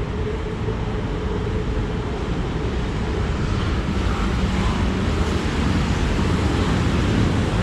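Steady traffic noise from a busy city road: a continuous rumble that grows slowly louder toward the end.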